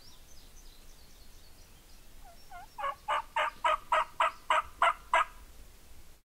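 Wild turkey calling: two softer rising notes, then a run of about nine loud, sharp calls at roughly three to four a second, stopping a little after five seconds in. Faint songbird chirps sound earlier.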